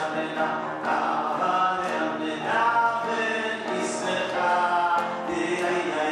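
A man singing a melody into a microphone, accompanied on a grand piano.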